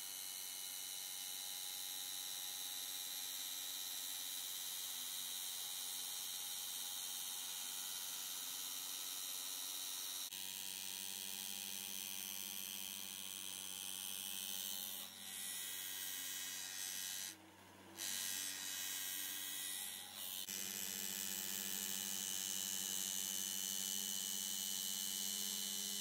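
Electric motor and belt-driven sanding drum of a CNC profile sander running steadily, a hum with a high abrasive hiss as the drum works along an aluminium extrusion. The sound changes about ten seconds in, with a few brief drop-outs near the middle.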